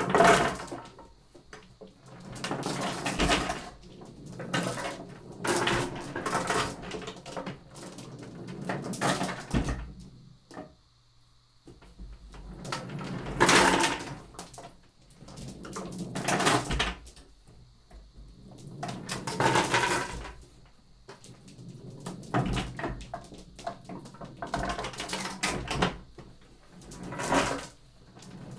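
Glass marbles rolling across paper in a large wooden tray as it is tilted back and forth, rumbling in repeated surges about every two to three seconds and clicking against one another and the wooden frame.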